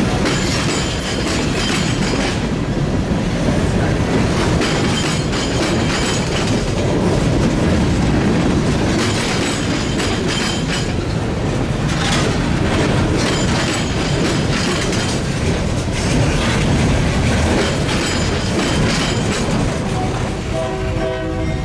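Train rolling past close by, its cars' wheels clattering steadily over the rail joints. A short pitched sound comes near the end.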